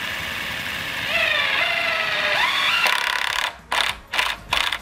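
Cordless drill driving a screw into a wooden pergola brace. The motor runs with a whine that climbs in pitch over a couple of seconds, then the trigger is pulsed in about four short bursts.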